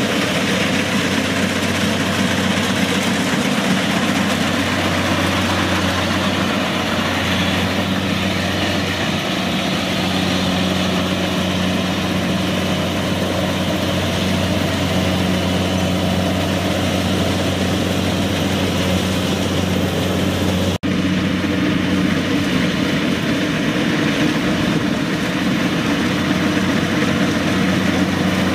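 Kubota DC-70 combine harvester's diesel engine running steadily while the machine cuts and threshes rice, a constant drone with the dense whir of its machinery. The sound drops out for an instant about two-thirds of the way through.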